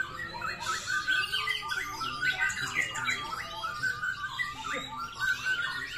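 Several caged white-rumped shamas (murai batu) singing at once: rapid whistles, chirps and trills overlapping without a break.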